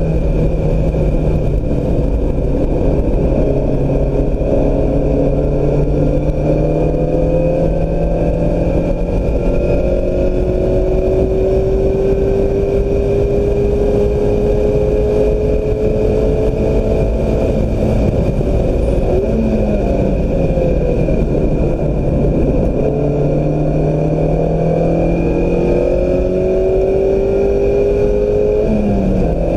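A Mazda MX-5 Miata's four-cylinder engine being driven hard on track. Its pitch climbs slowly through long pulls and drops quickly at gear changes, about two-thirds of the way in and again near the end, over steady wind and road noise.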